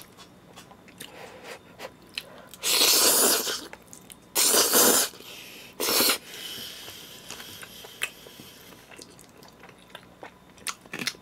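Spaghetti noodles slurped off chopsticks in three loud, hissing slurps, the first and longest lasting about a second, with small wet chewing clicks between and after.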